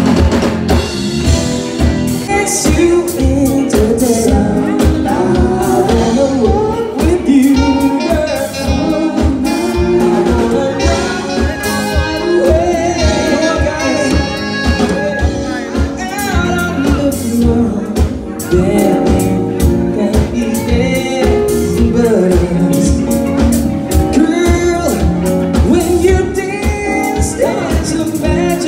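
Live band playing upbeat dance music with a singer over a steady drum beat.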